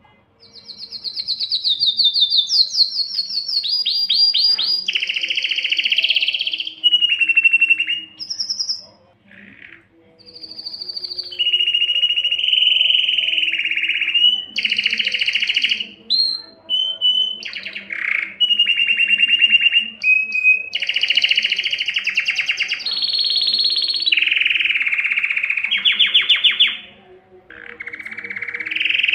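Male domestic canary singing a long, loud song of rapid trills and rolled phrases, with short pauses about nine seconds in and again near the end. It is the excited courtship song of a male in breeding condition.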